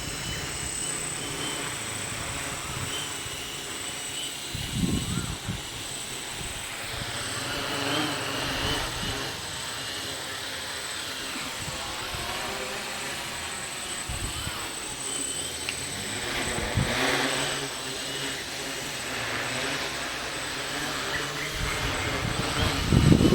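Strong wind buffeting the microphone in irregular low gusts over a steady hiss.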